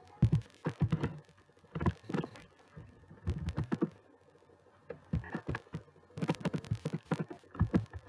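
Computer keyboard keys clicking in short bursts of typing, with pauses of roughly half a second to a second between bursts.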